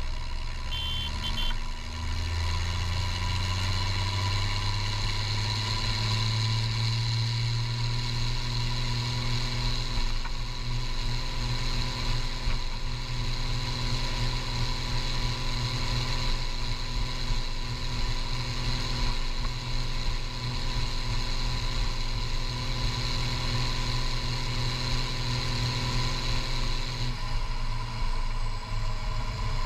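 Case IH 1455XL tractor's six-cylinder diesel engine running through a straight-piped vertical exhaust stack as the tractor drives along a road. The engine note climbs over the first several seconds as it gathers speed, then holds steady.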